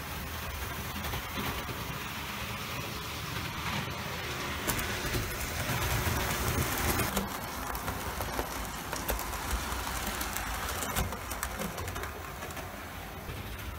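Model railway train running along the track: a steady low rumble and motor hum, with scattered clicks of the wheels over the rail joints.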